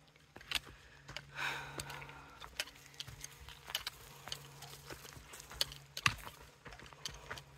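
A horse being ridden at a walk: scattered, uneven clicks and light knocks from its hooves and tack, with a soft rush about a second in.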